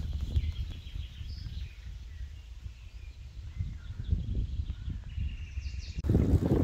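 Birds chirping in short, scattered calls over a low rumble of wind on the microphone. About six seconds in, the sound cuts abruptly to louder wind buffeting.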